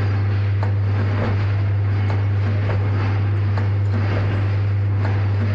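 Automatic liquid pouch packing machine running: a loud, steady low hum with light clicks at uneven intervals, roughly once a second, as its mechanism cycles.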